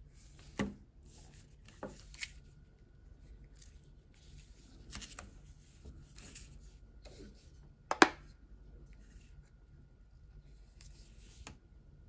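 Hands handling a metal-bodied hair dryer, with light rubbing and a few sharp clicks and knocks. The loudest click comes about two-thirds of the way through, as the concentrator nozzle is fitted onto the dryer's head.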